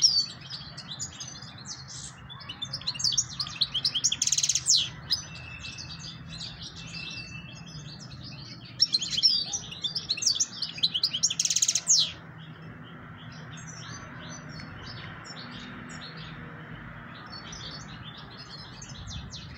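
European goldfinch singing: rapid, high twittering phrases, each ending in a dense buzzy trill. The song is loudest at the start and again about nine seconds in, with softer scattered notes between and toward the end.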